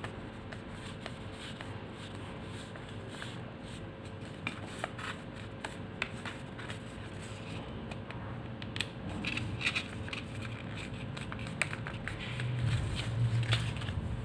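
A sheet of paper being folded and creased by hand: scattered light crinkles, crisp ticks and rubs of paper against paper and the table, busier in the second half, over a steady low hum.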